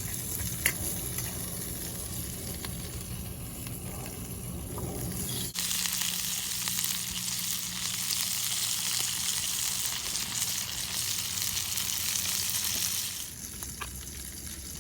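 Sausages sizzling in a small stainless steel frying pan, a steady frying hiss that gets louder and brighter about five and a half seconds in and drops back shortly before the end. Two sharp clicks sound right at the start.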